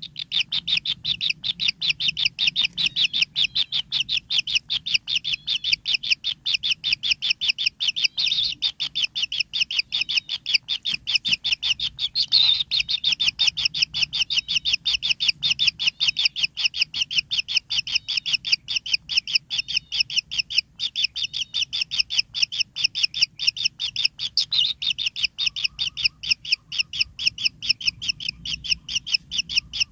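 White-throated kingfishers at their nest burrow chirping: a continuous run of short, high, evenly repeated chirps, several a second, without a break.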